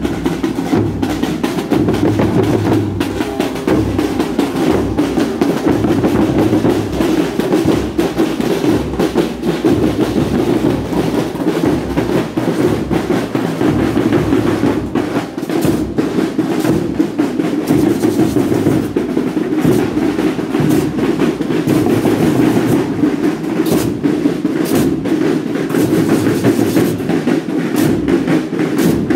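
Marching band drumline playing snare and bass drums in a continuous steady beat, with snare rolls.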